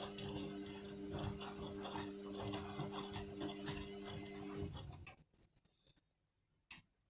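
Indesit washing machine running its rinse: a steady electrical hum with irregular light clicks and ticks over it. Both stop abruptly about five seconds in, leaving silence apart from one click near the end.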